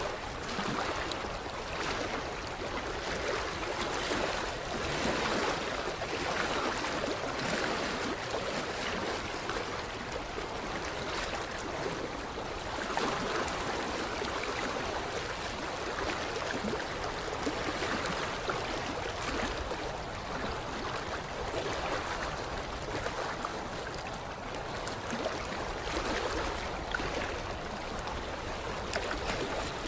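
Small waves lapping and splashing against a creek-bed shoreline, a steady irregular stream of little slaps and gurgles.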